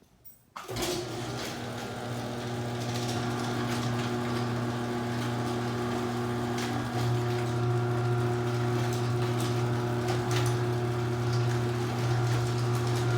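Chain-drive garage door opener's motor starting about half a second in and running with a steady hum as it raises the door.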